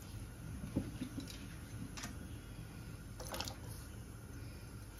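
Chunks of raw pumpkin dropped by hand into a pot of water with chickpeas: a few soft splashes and plops, spaced irregularly, over a low steady hum.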